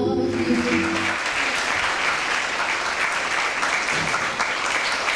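Audience applauding. It starts about a second in as the last notes of a song end.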